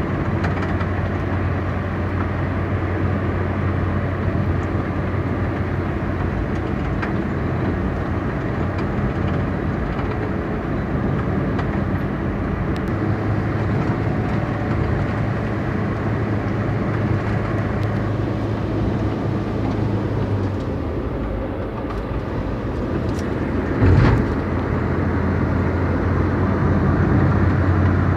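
Car driving: a steady low hum of engine and road noise. It eases off for a few seconds, then a short, loud thump comes near the end.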